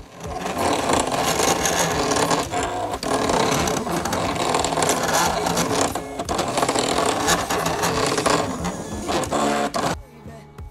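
Silhouette Portrait 3 sticker cutter running loudly as its motors drive the blade carriage side to side and roll the sticker sheet back and forth, cutting around curved sticker outlines. The whirring shifts in pitch and stops about ten seconds in, when the cut is finished.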